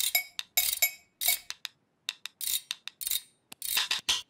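Wooden spoons being banged together, making short bursts of quick clacks about twice a second.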